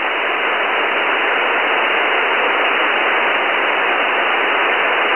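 Steady single-sideband receiver hiss: the empty QO-100 narrowband transponder passband heard in USB through the Goonhilly WebSDR, with no signal on the frequency. The hiss is narrow and thin, cut off sharply above the voice band by the receive filter.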